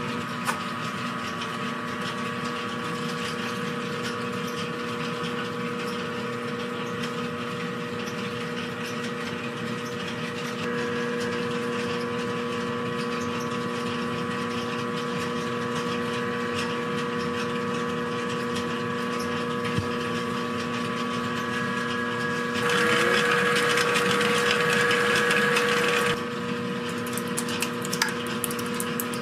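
Steady machine hum holding several fixed tones. A louder rushing noise joins it for about three seconds near the end, followed by a few light clicks.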